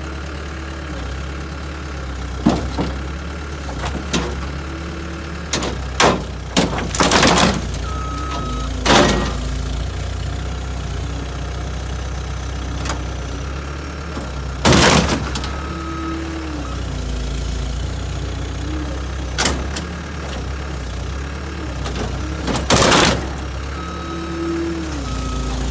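Skid steer engine running steadily while sharp metal crunches and bangs, about eight of them, break in as the car's hood is forced open.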